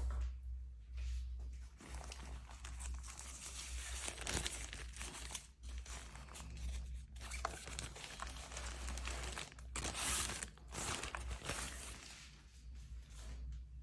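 Packaging crinkling and rustling as it is handled and unwrapped, in irregular bursts, loudest about ten seconds in and dying down near the end.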